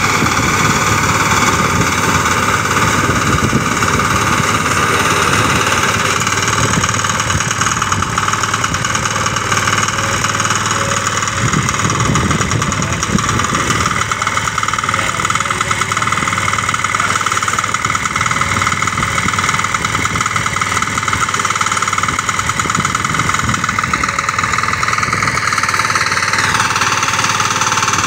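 Walk-behind crop reaper's small engine running steadily under load while the machine cuts standing wheat. The engine note dips slightly near the end.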